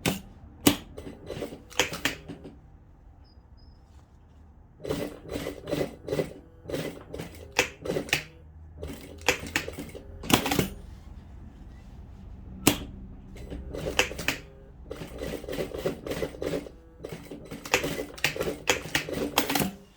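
Sewing machine stitching in several short runs, starting and stopping, its needle clattering rapidly over the hum of the motor.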